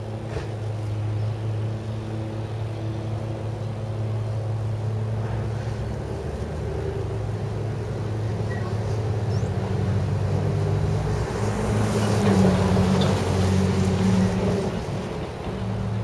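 Wind buffeting the camera microphones and rustling the plastic-wrapped roofing material, over a steady low hum. The wind and rustling swell about three-quarters of the way through, then ease off.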